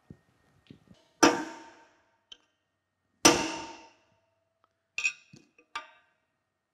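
Two hard metal-on-metal hammer blows about two seconds apart, each ringing briefly: a hammer striking a cold chisel to cut through a rusted-in screw in a cast-iron cane mill frame. A few lighter metal clinks follow near the end.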